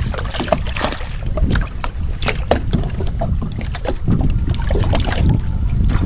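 Wind buffeting the microphone in a steady low rumble, with many short, sharp clicks scattered through it.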